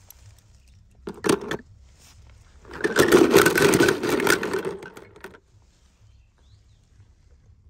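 Handling noise of small die-cast toy cars in a plastic tub: a short clatter about a second in, then a louder rattling scrape lasting about two and a half seconds.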